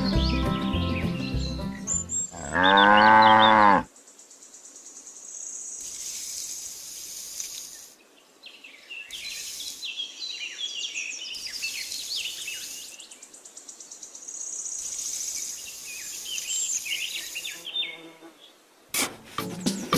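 A cow mooing once, a long loud moo with a rising and falling pitch, about three seconds in, as background music stops. Then quieter bird chirps and insect buzzing, with music starting again near the end.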